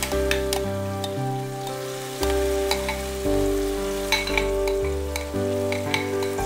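Spinach paste being spooned from a bowl into a kadai of hot fried onion-tomato masala: sizzling and frying, with repeated clinks and scrapes of a steel spoon against the bowl and pan. Background music with sustained notes and a shifting bass plays underneath.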